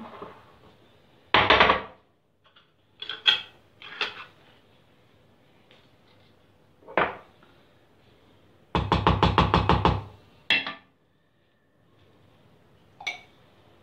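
Kitchen handling noises with glass jars and a metal spoon: a paper napkin rubbed over a glass jar, a few knocks and clicks of glass and spoon, and a quick run of scraping strokes about nine seconds in. Short bright clinks follow near the end.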